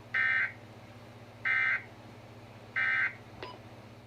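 Emergency Alert System End of Message: three short bursts of SAME digital data tones, each about a third of a second long and about 1.3 s apart, signalling that the alert has ended. A faint click follows, over a steady low hum.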